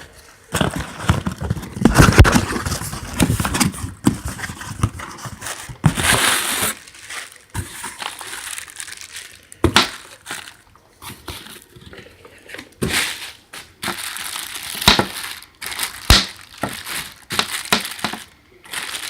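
Packaging crinkling and crumpling as a new hand tool is unwrapped by hand: irregular rustles broken by sharp clicks and scrapes, busiest in the first few seconds.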